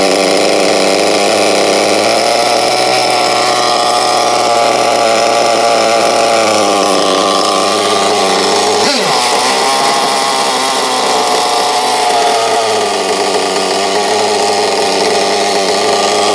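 Team Associated AE Pro .28 two-stroke nitro glow engine running at idle, its speed slowly drifting up and down while the carburetor's idle is being set. About halfway through the pitch briefly swoops and recovers.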